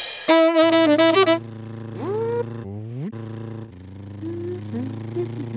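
A short saxophone-like musical phrase with wavering notes ends about a second in. Under it a low, steady engine hum starts, with a couple of rising pitch glides a little later.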